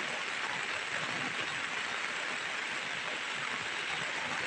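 Heavy rain falling steadily on hard wet surfaces, an even hiss with no let-up.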